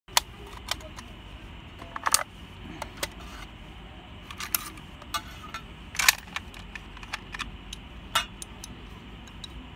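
Sharp metal clicks and clacks of a Type 81 assault rifle being field-stripped by hand, as the magazine and action parts come off and are set down, about a dozen in all; the loudest come near the start and about two, six and eight seconds in.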